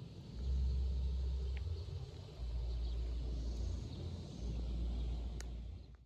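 Low rumble of wind buffeting the microphone outdoors, coming in three long gusts with a couple of faint clicks, then cut off abruptly.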